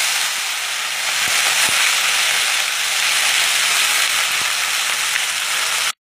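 Small mourala fish sizzling loudly in very hot mustard oil in a steel wok, fried on high flame until crisp: a steady frying hiss that cuts off suddenly near the end.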